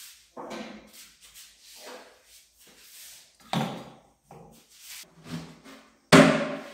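A string of hollow clacks and knocks as clamps are slotted into plastic pipe-section holders on the edge of a workbench. A loud thump comes near the end.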